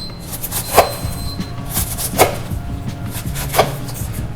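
A knife slicing the sides off a pineapple, in three sharp cuts about a second and a half apart.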